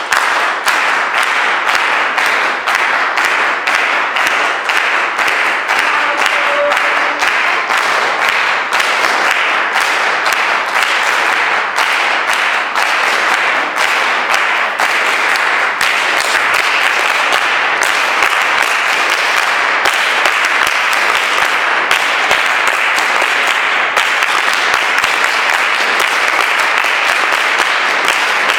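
A large audience clapping hands together, many claps at once in a dense, steady mass of sound.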